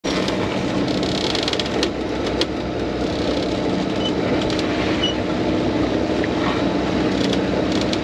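Sailboat's engine running steadily under way, mixed with the rush of wind and water past the hull, with a few sharp clicks.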